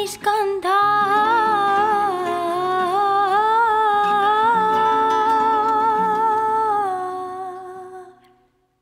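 A woman's voice singing a long wordless vocal line, held and gently wavering in pitch over a soft low accompaniment, fading away near the end.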